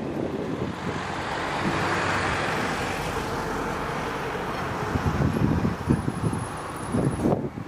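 Cessna Citation XLS+ twin turbofans running as the jet passes, a steady rushing roar that swells and then eases, with wind gusting against the microphone in the second half.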